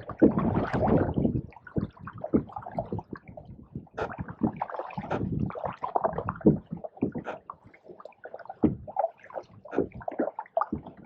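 Canoe paddles dipping and pulling through pond water, with gurgling and splashing at irregular strokes; the loudest splash comes in the first second or so.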